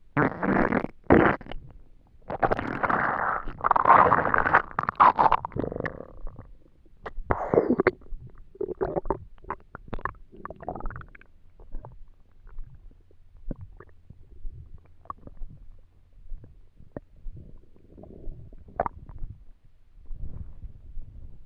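Empty human stomach rumbling and gurgling from hunger: long, loud gurgles in the first six seconds, then shorter, sparser gurgles and small pops, swelling again near the end.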